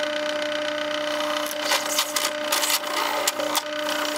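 Drill press running with a steady motor hum while its step drill bit cuts holes through a white plastic sheet, the scraping noise of the cut coming and going on top of the hum.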